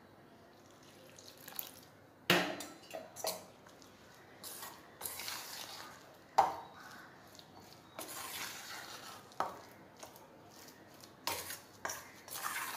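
Rice flour dough being mixed in a stainless steel bowl with a metal spoon and by hand: irregular clinks and knocks of metal against the bowl, between short stretches of scraping and rubbing.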